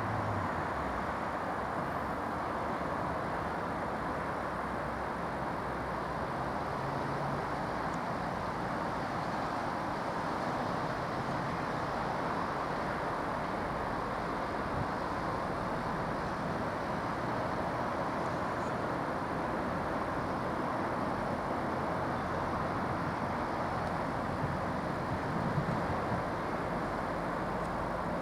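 Steady, even vehicle noise with no rise or fall in level.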